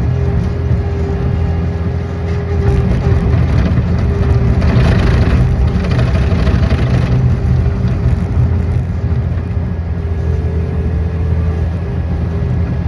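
Engine of a piece of construction machinery running steadily at a constant speed, with a rushing swell about five seconds in that lasts a couple of seconds.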